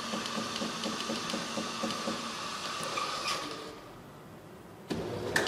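Jura automatic coffee machine running, a steady mechanical whirr with a fine rattle, partway through making a latte macchiato. It dies away about three and a half seconds in, and after a short lull the machine starts up again near the end.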